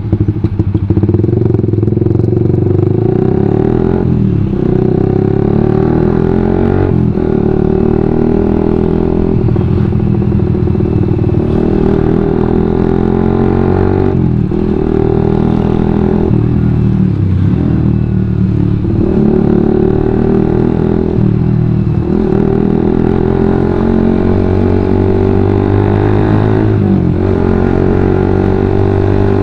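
Suzuki GSX-R150's single-cylinder engine running through a WRX GP5 full-system aftermarket exhaust while riding. The note climbs under throttle and drops off sharply every two to three seconds with gear changes and throttle lifts. The exhaust is loud and aggressive.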